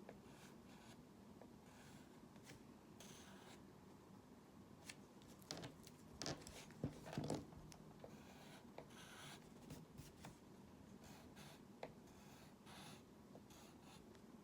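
Faint scratching of drawing strokes, short and irregular, made by a pen, pencil or stylus working over a surface. A few louder knocks and rubs come about six to seven and a half seconds in.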